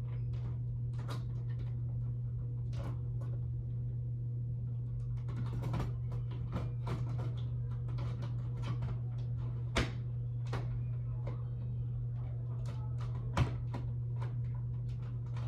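Scattered light clicks and taps from handling a fire alarm and twisting it into its mount, with two sharper clicks in the second half, over a steady low hum.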